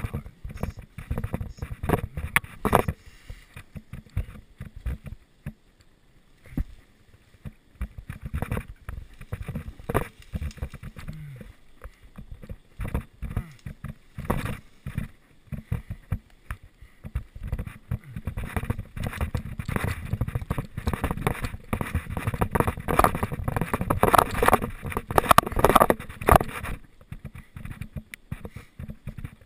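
Footsteps pushing through brush and tall grass, with leaves and twigs rustling and crackling in an irregular patter that grows busier and louder about two thirds of the way in, then eases off near the end.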